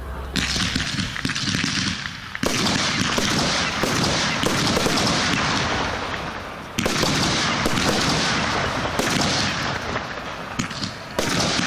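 Aerial firework shells bursting overhead: four sudden loud bangs, the last near the end, each followed by several seconds of dense crackling.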